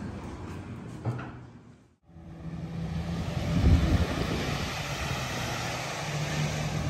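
A single knock about a second in, then a steady outdoor rush of wind and surf with the low drone of jet ski and boat engines out on the water, and gusts buffeting the microphone.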